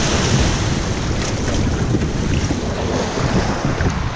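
Choppy river waves splashing over rocks and against the hull of an aluminium boat stuck aground on a rocky shore, with steady wind buffeting the microphone.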